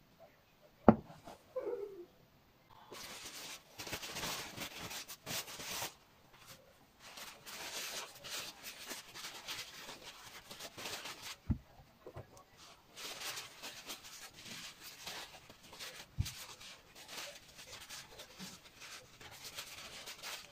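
Paper towel rubbing over button mushrooms to wipe them clean: a dry, rustling scrub in stretches of a few seconds each. A few sharp knocks break in, the loudest about a second in.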